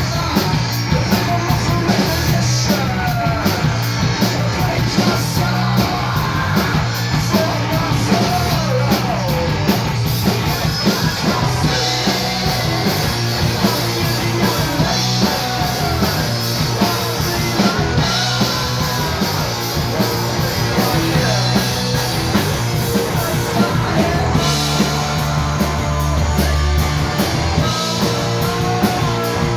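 Live punk rock band playing loud, with electric guitar, drums and shouted vocals.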